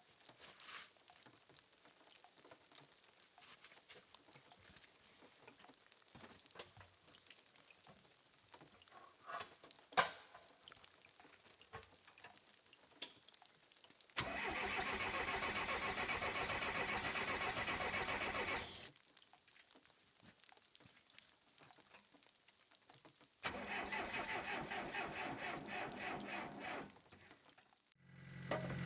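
Case 188D diesel engine of a 580CK backhoe being cranked by its starter twice, about four and a half seconds and then about three and a half seconds, stopping abruptly each time without catching. Right at the end the engine is heard running.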